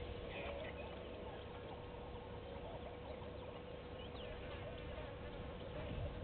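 Outdoor bush ambience: a steady hum under scattered faint high chirps.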